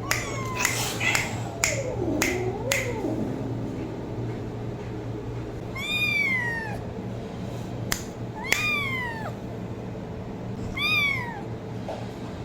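A cat meowing several times, each meow rising then falling in pitch, about every two and a half seconds in the second half. Several sharp clicks in the first three seconds, over a steady low hum.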